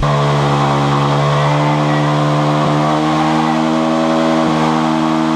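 Vehicle engine running at steady revs while driving, a loud, even droning note that dips slightly in pitch in the first second and then holds.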